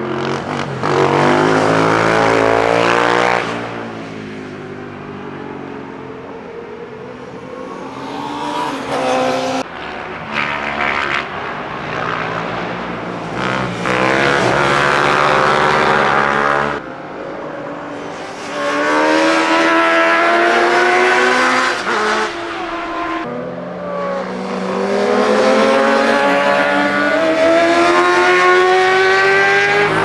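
Racing motorcycles accelerating hard past on a circuit, one after another. The engines rev up through the gears with clear upshifts, in several loud passes with quieter engine sound in between.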